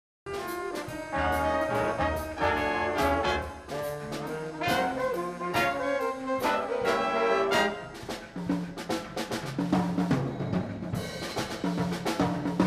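High school band playing a holiday piece, with brass (trumpets and trombones) carrying sustained melody notes over regular percussion strikes. It begins right after a brief break at the very start.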